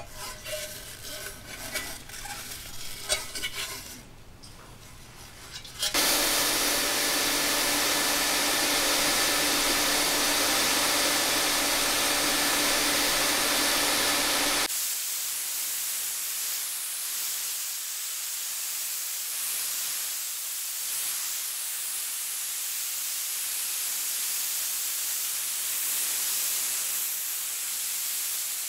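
Tin-plate toy car parts being handled, with light metal clicks and rattles. About six seconds in, a sandblast cabinet gun starts blasting the old paint off the toy's tin body: a loud, steady hiss with a hum under it. About halfway through, the hum drops away and a thinner steady hiss of blasting carries on.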